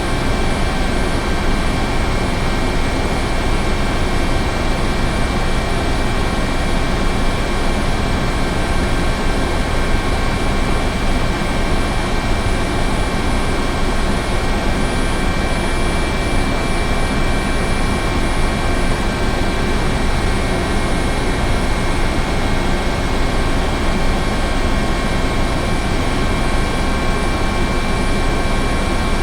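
Helicopter running steadily: a dense, even rumble with several steady high-pitched tones held over it, unchanging throughout.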